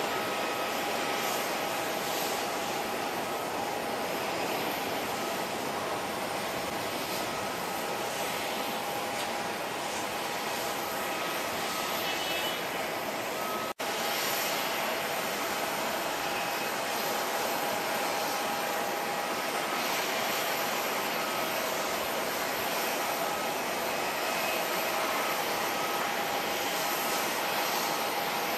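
Four-engine Airbus A340-300 jet airliner at climb power, a steady roar of its CFM56 turbofans. The sound drops out for an instant about halfway through.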